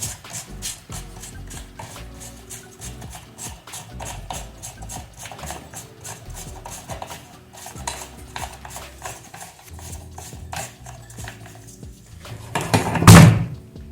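Metal clinks, taps and scraping of hand tools on an electric fan's metal parts during disassembly, with a louder clatter near the end.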